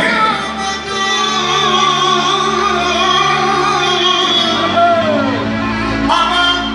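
Live, amplified band music: a singer at a microphone with clarinets, the melody sliding and wavering between long held notes over a steady low backing.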